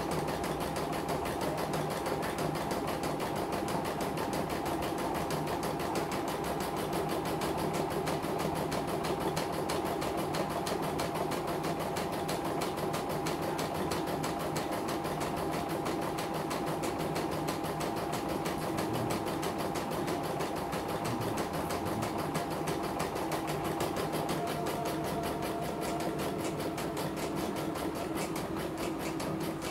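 CNY portable computerized embroidery machine stitching out a design, the needle going up and down at a fast, even rate with a steady hum. It is on a test run after servicing and keeps stitching without stopping, which the repairer reads as running smoothly with no thread breaks and the sensor working. The hum changes pitch about three-quarters of the way through.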